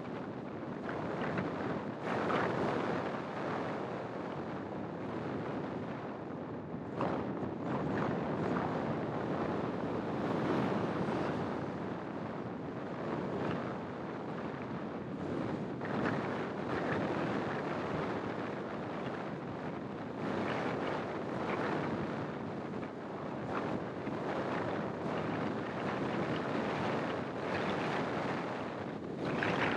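Wind buffeting the microphone of a camera mounted outside a moving car, mixed with road and traffic noise: a continuous rushing that swells and eases again and again.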